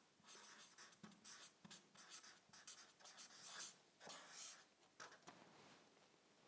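Felt-tip marker writing on flip chart paper: a quick run of short, faint scratching strokes as a word is written out by hand, stopping about five seconds in.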